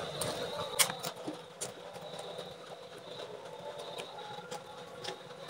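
Close-miked eating sounds: chewing and sharp wet mouth clicks and smacks as rice and fish are eaten by hand, scattered irregularly, with a strong click about a second in. A steady low hum runs underneath.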